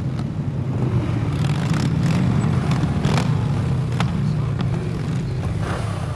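A group of motorcycles riding up together, cruisers and a sport bike, their engines running with a steady low drone.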